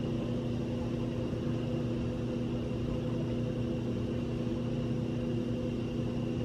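Steady mechanical hum with several constant tones, the even drone of a running motor or engine.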